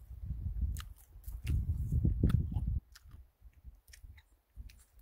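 Close-up chewing and mouth noises of a man eating freshly picked wild huckleberries, picked up by a lapel microphone on his chest: irregular low rumbling in the first few seconds with scattered sharp clicks, then quieter.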